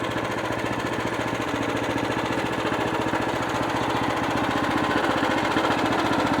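Sawmill's 14-horsepower engine running steadily under load as the saw head feeds slowly through a hardwood black walnut log, with a fast even engine pulse that grows slightly louder.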